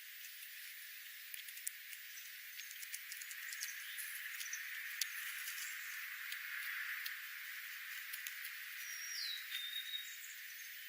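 Small birds' faint, scattered ticking chips over a steady hiss, with one clear high call near the end that slides down and then holds a short level note.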